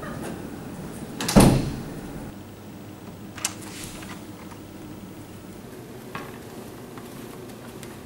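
A classroom door bangs shut about a second and a half in, followed by a lighter click a couple of seconds later, over faint room noise.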